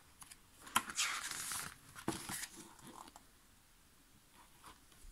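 Paper pages of a CD album's photobook being turned by hand: a light tick, then a paper swish about a second in, and another tick and rustle a second later.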